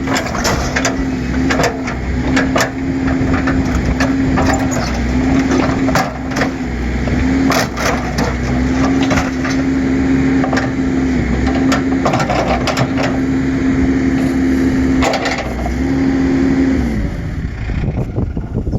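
A heavy machine's engine working under load, its note stepping up and down, while the metal of a scrap car cracks and snaps over and over as it is torn apart. The engine winds down near the end.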